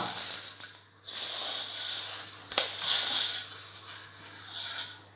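Dry vermicelli (semiya) crackling and rustling as it is broken up by hand and pushed off a stainless steel plate into a pan. The sound comes and goes in uneven waves.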